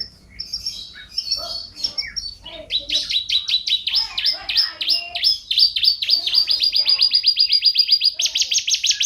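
Domestic canary singing: scattered chirps, then from about three seconds in a long, rapid trill of repeated notes, which switches to a higher trill near the end.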